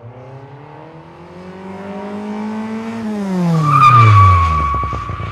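Car sound effect: an engine rising in pitch for about three seconds, then dropping as it speeds past. A held tyre screech comes in about three and a half seconds in and is the loudest part.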